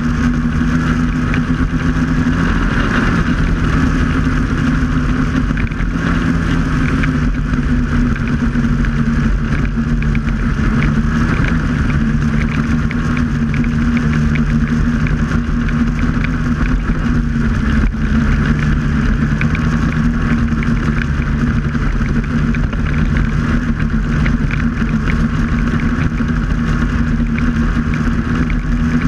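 Snowmobile engine running at a steady cruising speed as the sled travels over snow, a constant drone with no clear changes in pitch or level.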